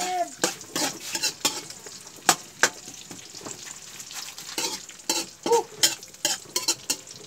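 Metal spatula stirring ginger frying in oil in a steel wok, clinking irregularly against the pan over a steady sizzle.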